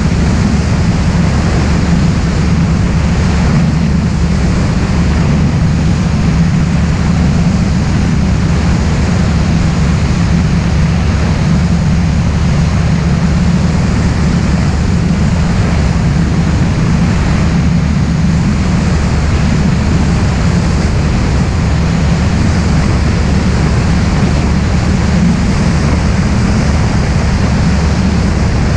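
Propeller plane's engine and propeller running steadily in cruise, a constant low drone under loud rushing wind noise on the microphone.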